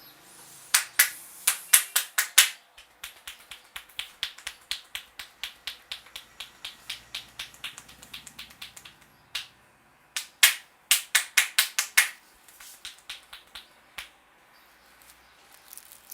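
Rapid sharp snapping clicks from a barber's hands during an Indian head massage. Two loud flurries, about a second in and again about ten seconds in, with a steady run of softer clicks, about four a second, between them.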